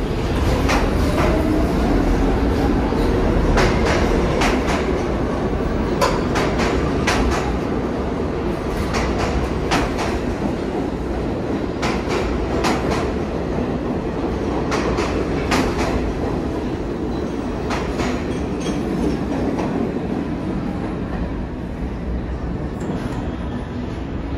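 New York City subway train running along the track with a steady rumble and its wheels clacking irregularly over rail joints. A motor whine rises in pitch at the start, and the sound eases slightly toward the end.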